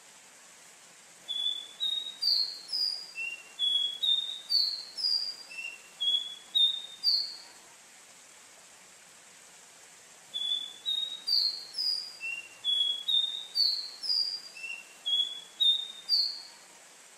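Caboclinho, a Sporophila seedeater, singing two song phrases, each a quick run of short rising whistled notes lasting about six seconds, with a pause of steady faint hiss between them.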